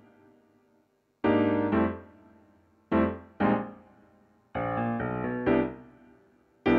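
Solo piano background music: chords struck mostly in pairs, each left to ring and fade, with short pauses between the groups.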